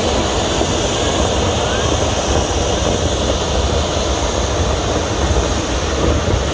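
Steady rumble and hiss of a narrow-gauge steam train in motion, heard from aboard.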